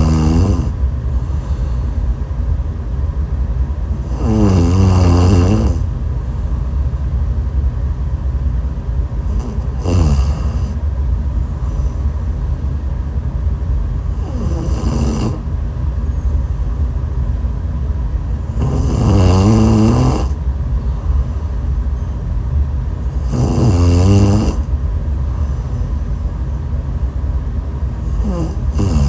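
A woman snoring, a loud snore about every five seconds, each lasting about a second, over a steady low rumble.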